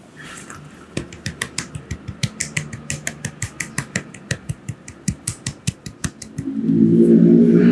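Rapid, crisp hand strikes of a barber's massage, about five a second. Near the end a louder, steady, low-pitched sound with several tones comes in.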